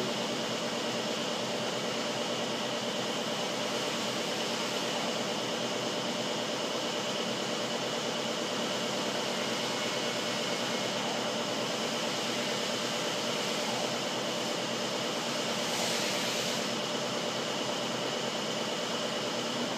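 Steady background hiss with a constant hum, swelling slightly about sixteen seconds in; the soldering itself makes no distinct sound.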